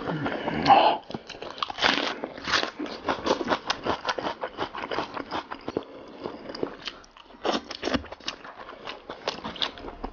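Close-miked chewing of braised lamb head meat: wet, smacking mouth sounds with many small clicks, a few louder bursts in the first three seconds.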